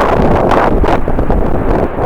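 Strong wind buffeting the microphone: a loud rumbling rush that surges and falls back in gusts.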